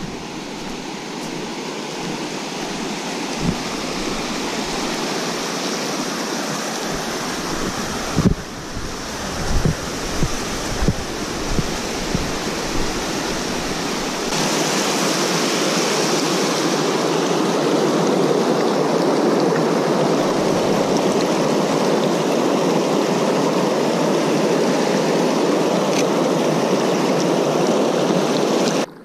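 Shallow mountain stream rushing over rocks: a steady rush that grows louder, stepping up about halfway through. A few low thumps come in the middle.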